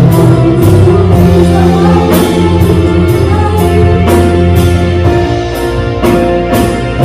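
Live worship band playing a song: singers over keyboard, electric bass, guitar and a drum kit, with sustained bass notes and regular cymbal and drum hits.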